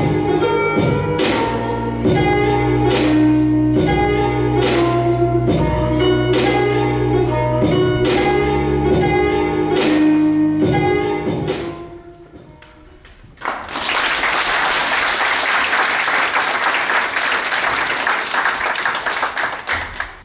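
Recorded dance music with a steady beat and bass line plays and fades out about twelve seconds in. An audience then applauds steadily until near the end.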